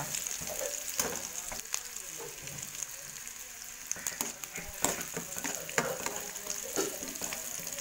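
Chopped onion sizzling as it fries in oil in a nonstick pan, with a steady hiss. A steel spoon stirring it clicks and scrapes against the pan roughly once a second.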